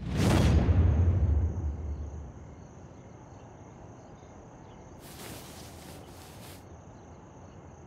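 A logo swoosh with a low rumble that fades out over the first two seconds. Then crickets chirp steadily as a night-time ambience, with a brief soft rustle about five seconds in.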